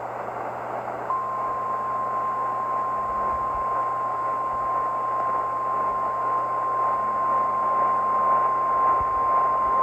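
Weather radio warning alarm tone, the single 1050 Hz alert tone: one unbroken steady tone that begins about a second in, over constant radio static hiss. It signals that a weather warning is about to be broadcast, here a flash flood warning.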